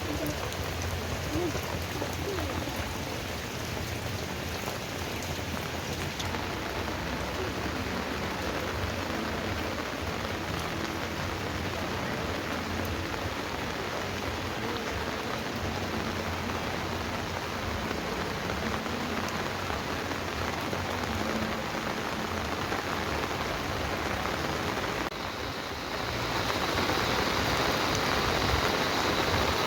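Steady rain falling, an even patter and hiss. It dips briefly near the end, then comes back louder and brighter.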